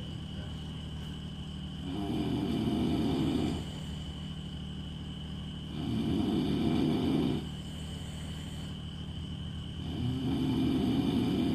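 Snoring: three long, rasping snores about four seconds apart, each lasting about a second and a half, over a steady background hum.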